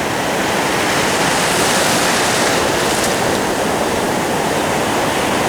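Ocean surf breaking and washing up the beach, a loud steady rush that swells about two seconds in.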